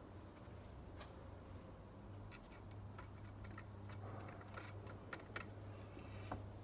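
Faint, irregular light clicks and taps of small metal parts being handled while nuts are fitted onto the tricycle's control rod, over a low steady hum.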